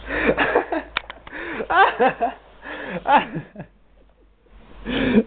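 A man doing a loud mock snore: four throaty, voiced snorts, each rising and falling in pitch, with a short pause before the last.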